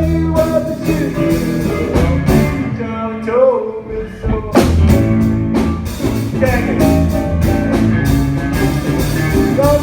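Live band playing a blues-rock song: guitar and drums with a singing voice.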